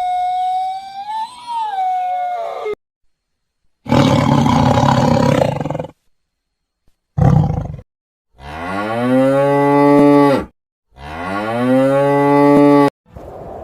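A canine howl ends about two and a half seconds in. After a pause come a rough, noisy call and a short grunt, then two long, drawn-out cow moos, each rising in pitch and then held.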